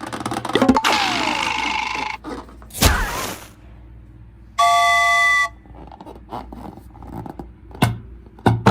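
A string of short, varied sound effects: a falling sliding tone about a second in, then a hiss, a sharp hit, a steady horn-like tone lasting about a second in the middle that starts and stops abruptly, a few clicks, and a rising glide near the end.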